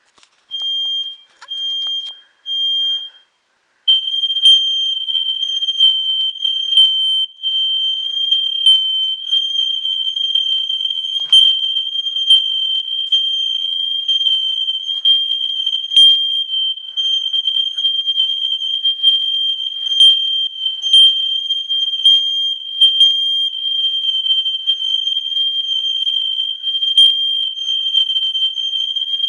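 Household smoke alarm sounding its test: three short shrill beeps, then from about four seconds in a loud, nearly unbroken high-pitched tone.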